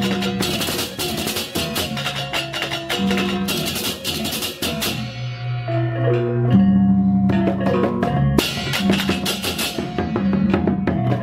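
Background music with a steady beat and percussion, including mallet-like notes.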